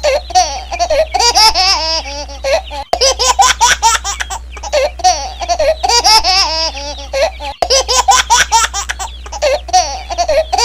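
High-pitched laughter in a short looped clip, the same stretch repeating about every four and a half seconds with a brief gap at each restart, over a steady low hum.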